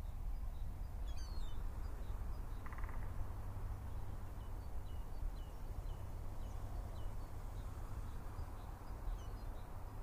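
Outdoor ambience: a steady low rumble with faint, scattered bird calls, and one short call about three seconds in.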